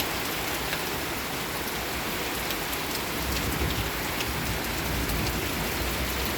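Heavy rain pouring down in a thunderstorm: a dense, steady hiss with scattered sharp drop clicks. A low rumble of thunder comes in about halfway through.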